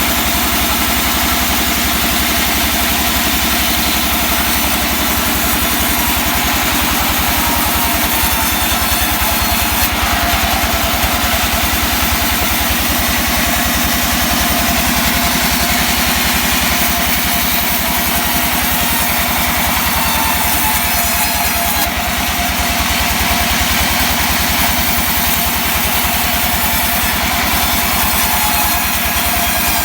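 An engine running steadily at a constant speed, with no revving or load changes.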